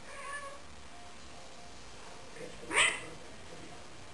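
One short animal call, rising in pitch, about three seconds in.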